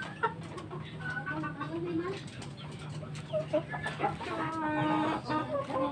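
Domestic chickens clucking, with a longer, fuller call about four and a half seconds in, over a low steady hum that stops about four seconds in.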